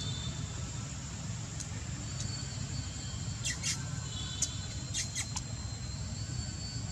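Baby monkey squeaking: a few short, high-pitched squeaks about halfway through and again around five seconds in, over a steady low hum.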